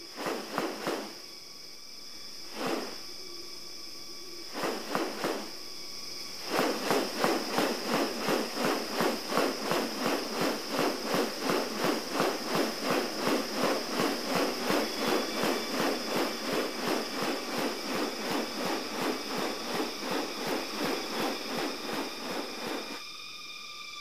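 Male riflebird, a bird of paradise, in courtship display: a few sharp wing rustles, then a long, even run of rapid wing swishes, about three a second, that stops near the end. A steady high insect drone runs underneath.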